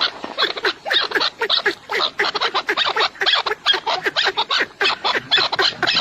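A flock of birds calling in a dense chatter of short, harsh calls, many a second and overlapping.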